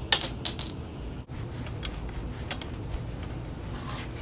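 Hammer blows banging the rear axle bolt out of a Hawk 250cc motorcycle: about four quick metallic strikes with a ringing tone in the first second, then they stop, leaving a few faint clinks.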